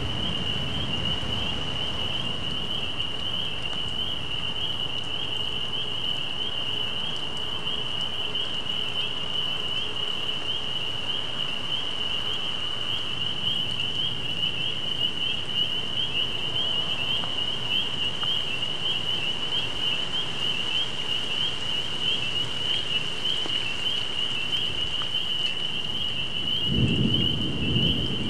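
Thunder of a passing thunderstorm starts rumbling near the end, over a steady hiss and a constant high-pitched whine.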